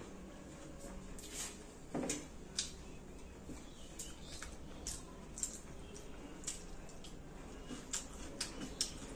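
Eating sounds: irregular small clicks and smacks, one or two a second, from fingers mixing rice on a steel plate and chewing, over a faint low hum.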